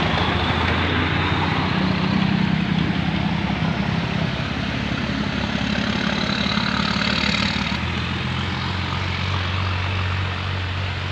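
A vehicle engine running with a steady low drone under loud, continuous rushing noise. The drone changes pitch about four seconds in and again near eight seconds.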